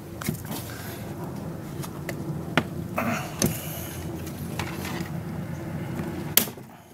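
Rubber hood seal being pulled off the cowl of a Toyota Prius: a handful of sharp clicks and snaps as it comes away from its retaining clips, the loudest near the end, over a steady low background hum.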